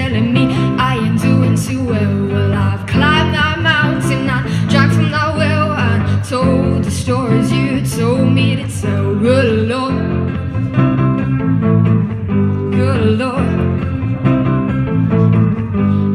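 A guitar strummed in steady rhythmic chords, with a woman's voice singing over them.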